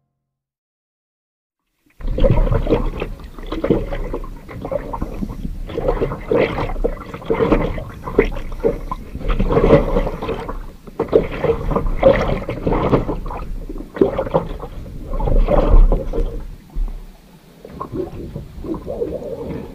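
Water rushing and gurgling around an underwater camera as it sinks, coming in irregular surges over a steady low hum. It starts suddenly about two seconds in, after silence.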